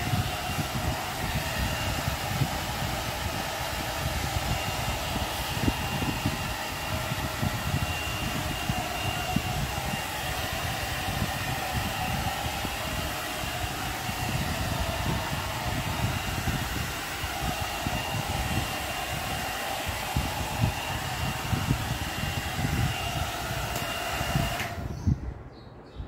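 Agaro volumizer hot-air brush dryer running steadily as it is drawn through hair: a rushing blow of air with a steady motor whine. It switches off suddenly about a second before the end.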